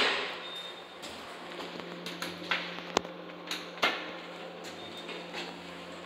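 Inside an Otis Series 7 traction elevator car: a low steady hum, with a handful of sharp clicks between about two and four seconds in, the car's pushbuttons being pressed.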